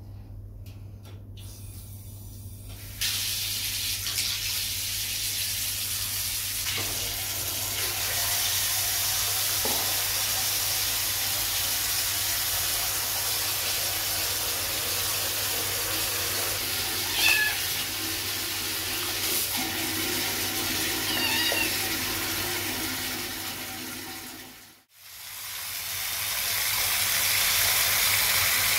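Water running into a bathtub, starting abruptly about three seconds in, with a few short kitten meows over it in the second half. The water sound drops out briefly near the end and then returns.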